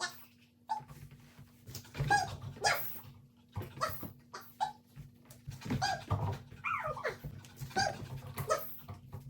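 Border collie puppy barking and yipping in short, sharp calls over and over, with a falling whine about seven seconds in.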